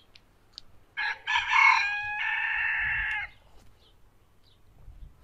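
A rooster crowing once, starting about a second in and lasting a little over two seconds.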